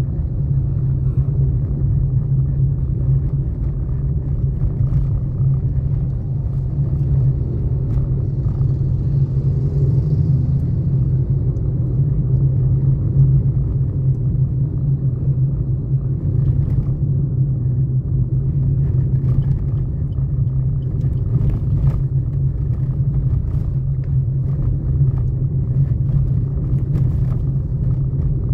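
Steady low rumble of a road vehicle in motion: engine drone and road noise, with a few faint ticks.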